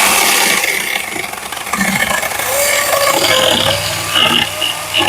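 Wild Badger 20-volt cordless electric chainsaw cutting through a maple hardwood log, the chain tearing through the wood with a loud, harsh noise. About three seconds in, a steadier motor whine comes through as the cut is finished off.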